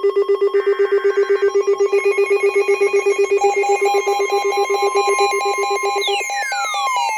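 Layered electronic alert tones for a severe thunderstorm warning: a low beep pulsing about five times a second with a ring-like warble at first. A higher pulsing beep joins about halfway through, and falling sweeps start near the end.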